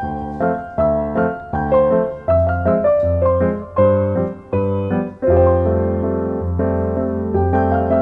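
Background piano music: a melody of struck notes, about two a second, each fading after it is played, over a held bass line.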